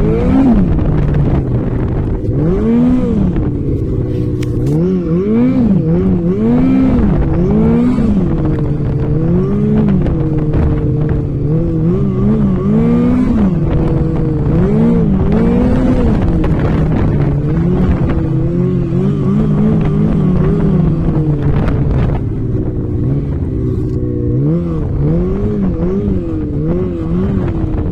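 A vehicle engine revving up and down over and over, the pitch swelling and dropping in repeated bursts every second or two, easing to a lower, more even run in the last few seconds.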